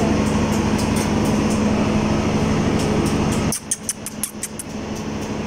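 Steady machine hum with a strong low drone that cuts off abruptly about three and a half seconds in. A fainter steady noise with light high ticks remains after it.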